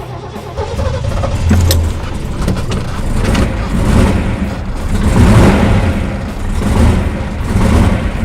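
Ford Boss 429 hemi-head V8 engine running and being revved, the sound rising and falling in several surges.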